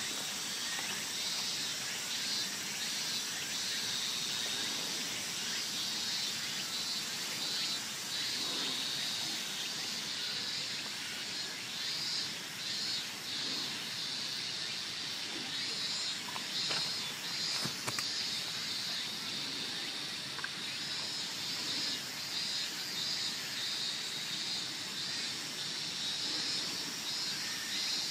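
Steady outdoor insect chorus, a high buzzing band with a fast pulsing texture, with one sharp click about two-thirds of the way through.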